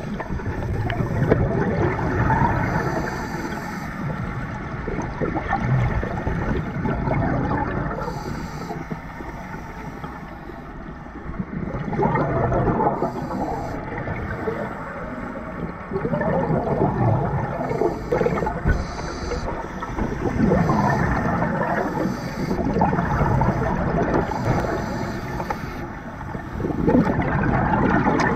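Scuba diver breathing underwater through a regulator: exhaled bubbles gurgle loudly past the camera in surges every few seconds.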